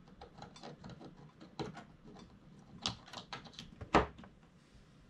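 Scattered light clicks and taps of hands handling the plastic parts of an opened-up hot glue gun, with a sharper knock about four seconds in.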